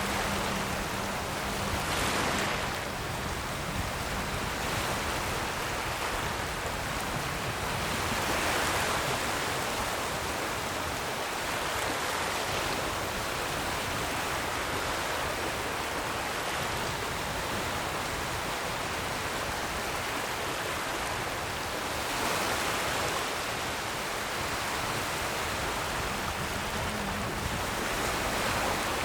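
Ocean surf: a continuous rush of waves washing in, swelling louder now and then as a bigger wave breaks.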